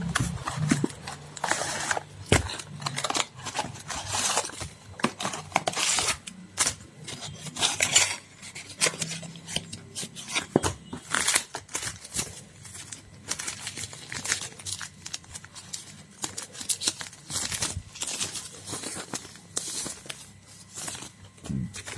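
Packaging being handled: a cardboard box opened and foil condom wrappers and paper pouches pulled out and shuffled, crinkling and rustling in irregular bursts.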